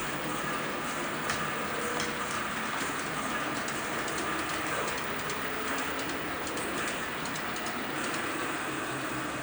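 Model railway trains running on the layout: a steady rattling whir of small wheels on track, with scattered light clicks.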